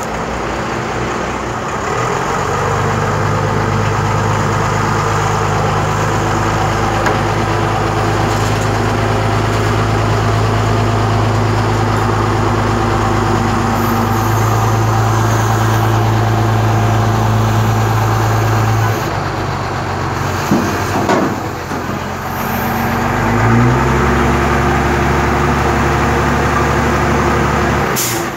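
Truck-mounted crane's engine running at raised revs to drive the crane's hydraulics. It is steady, stepping up in pitch about two seconds in, dropping about two-thirds of the way through, then rising again with a short upward glide and cutting off near the end.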